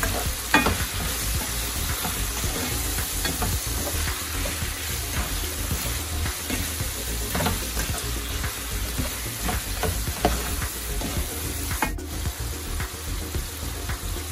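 Chicken pieces with tomato, onion and ginger sizzling steadily as they sauté in a pot, stirred with a utensil that clicks and scrapes against the pot now and then.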